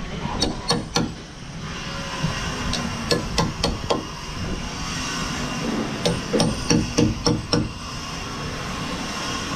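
Hammer driving a wood chisel into a timber beam: short runs of sharp blows, a few at a time, with pauses between them.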